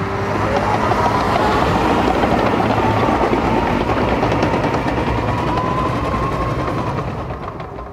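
Caterpillar 953D track loader working nearby: engine running loud and steady with a wavering whine over it, fading away in the last second.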